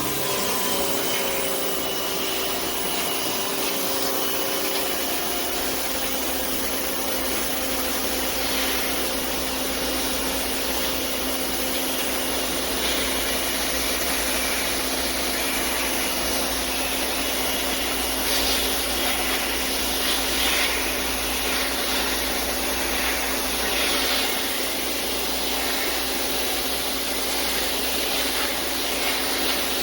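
Giraffe Tools Grandfalls wall-mounted pressure washer running and spraying, a steady motor and pump drone under a loud hiss of the water jet, with brief brighter surges of spray.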